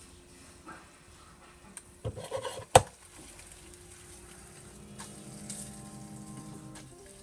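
Utensil knocking against a frying pan or dish: a short run of knocks about two seconds in, ending in one sharp clack. Faint steady tones follow near the end.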